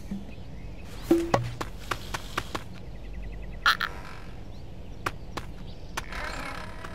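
Cartoon sound effects: scattered light clicks and knocks, a short chirping squeak a little past the middle, then a wavering animated-ostrich vocal sound starting about six seconds in.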